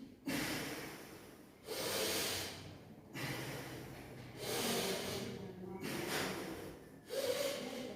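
A person breathing forcefully and audibly through the nose in a yoga breathing exercise, strong inhales and exhales taking turns, about six breaths in all: breath drawn in with the elbows and neck going back, let out as they straighten.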